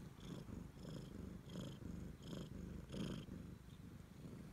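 Siamese cat purring close to the microphone, in rhythmic pulses about one every two-thirds of a second that ease off near the end.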